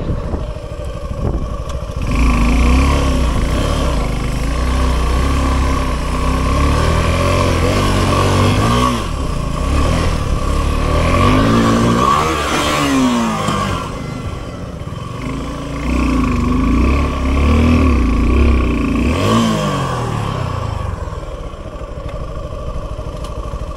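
Motorcycle engines on a dirt off-road track, revving up and down in repeated surges, the pitch climbing and dropping every few seconds as the bikes accelerate and ease off.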